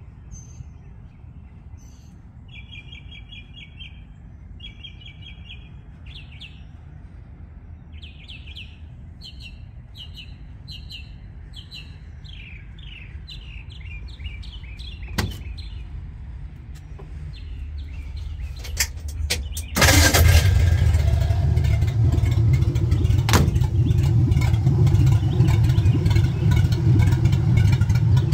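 Songbirds chirping in repeated short trills. About twenty seconds in, the truck's Ford flathead V8 starts suddenly and runs steadily and loudly.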